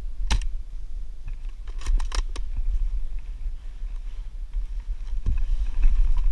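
Sharp mechanical clicks from an airsoft sniper rifle, picked up by a camera mounted on the rifle: one click just after the start, then a quick run of about four clicks around two seconds in, over a steady low rumble of handling on the mount.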